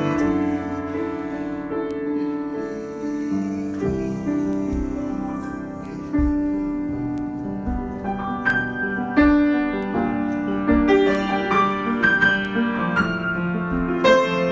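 Solo piano improvisation: slow, held chords that fade softly, then more frequent struck notes, including higher ones, from about halfway through.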